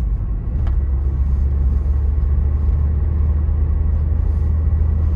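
2006 Scion xA's 1.5-litre 1NZ-FE four-cylinder engine pulling steadily in gear under light throttle, heard from inside the cabin with road rumble. A steady low drone settles about half a second in, and the engine runs smoothly with no misfire or stutter.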